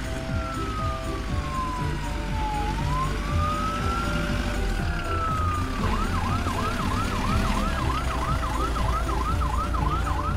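Cartoon ambulance siren: a slow wail whose single tone falls, rises and falls again, switching about six seconds in to a fast yelp of about two to three sweeps a second.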